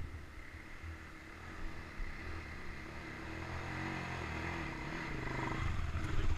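Sport ATV (quad bike) engine approaching under throttle, the revs rising and falling as it climbs, and growing steadily louder as it nears.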